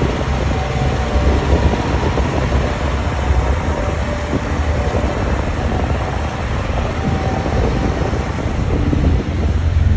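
Diesel engines of heavy road-building machines running at work close by, a Cat CS11 soil compactor and a Komatsu GD655 motor grader: a steady, loud low rumble with machinery noise.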